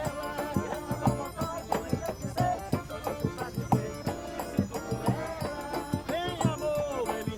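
Northeastern Brazilian folk street music: a melody line that bends in pitch in places, over a steady percussion beat.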